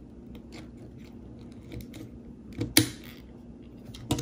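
Small plastic Lego pieces clicking and rattling as they are handled and pressed onto a model: a few light clicks, the loudest a quick cluster about two-thirds of the way through.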